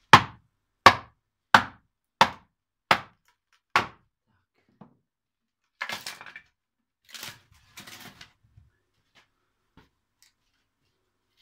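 Wooden mallet striking the back of an axe set into a wooden billet: six sharp knocks about 0.7 s apart, driving the blade in to split off a shingle blank by hand. Around the middle come a few rougher cracking, tearing sounds as the wood comes apart.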